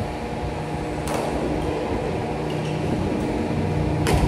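A machine running steadily with a low, even hum, broken by two sharp clicks, one about a second in and one near the end.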